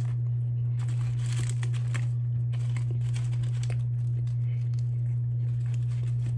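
McDonald's paper food wrapper crinkling in short spells as fries are picked from it and dipped. A loud, steady low hum runs underneath.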